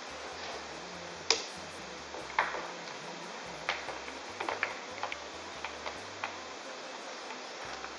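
A string of irregular plastic clicks and knocks, the loudest about a second in, as gear and plastic tubes are fitted into a plastic crate lashed to a surfboard, over a steady background hiss.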